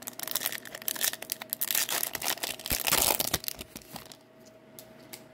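Foil wrapper of an Upper Deck Series 2 hockey card pack being torn open and crumpled by hand: a dense run of crackling that grows loudest toward its end and stops about four seconds in.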